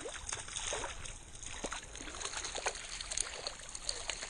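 Hooked trout splashing at the surface of a small creek while being played on the line, with many short splashes over the steady sound of the flowing stream.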